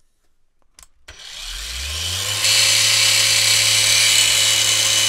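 Ferrex 40 V cordless angle grinder with a flap disc fitted, switched on about a second in and spinning up, its motor pitch rising over about a second, then running at full speed with a loud high whir that steps up about two and a half seconds in. It is switched off at the very end. The owner finds the sound not that powerful.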